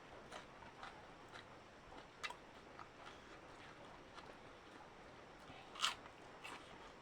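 Close-up eating sounds: faint wet mouth clicks from chewing, about two a second and irregular, with one louder click about six seconds in.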